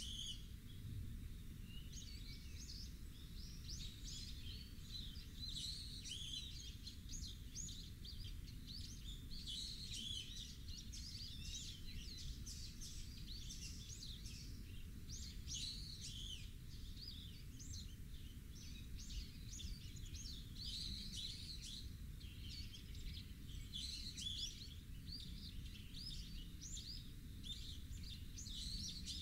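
Many small birds chirping continuously in quick, overlapping calls, over a steady low rumble.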